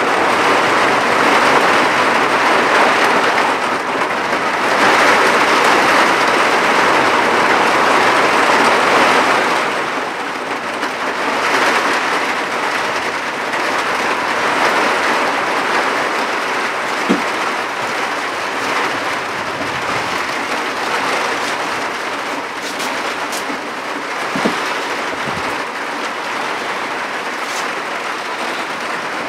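Heavy cloudburst rain pouring onto a tiled terrace: a steady rush of rain, heaviest in the first ten seconds or so, with a few sharp drips later on.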